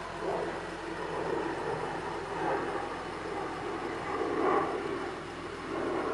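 2007 BMW 328i's N52 inline-six idling after a cold start, heard at the exhaust through its stock muffler.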